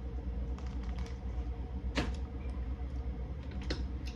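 Scattered sharp clicks and cracks of clam shells being handled and pried open, the loudest about two seconds in, over a low steady hum.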